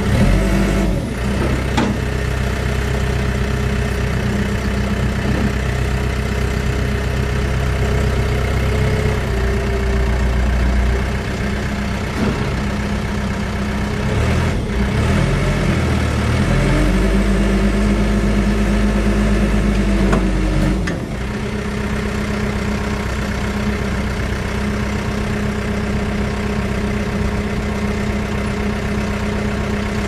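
2005 Case 580 Super M backhoe's four-cylinder diesel engine running steadily while the loader and backhoe are worked. About halfway through, the engine note dips, climbs back and holds higher for a few seconds, then settles again, with a few short clunks along the way.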